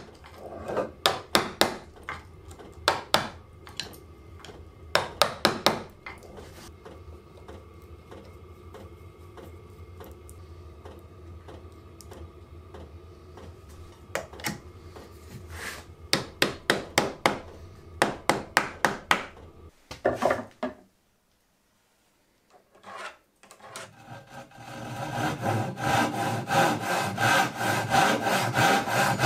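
Clusters of sharp wooden taps and clicks in quick succession, twice, then after a short break a hand saw cutting through a hardwood table apron in steady strokes to recut its tenon.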